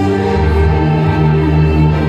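Music for a stage dance routine, with long held notes over a deep bass; the bass moves to a new held note about half a second in.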